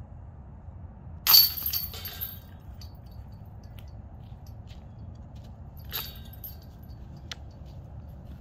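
A disc golf disc hits a metal basket's chains: one loud clash with about a second of jingling and ringing. A lighter metal clink follows near the end.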